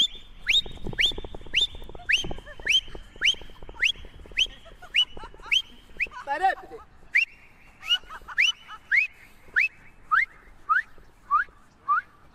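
Short whistled calls repeated about twice a second, each a sharp falling note, that give a blindfolded runner something to follow by ear. The calls slow a little and drop lower in pitch toward the end.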